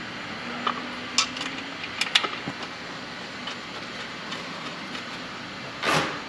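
A handful of light, sharp metallic clicks as stainless steel hex-head screws and an aluminium brake caliper cover are handled and fitted, over a steady background hum. A brief rushing noise comes near the end.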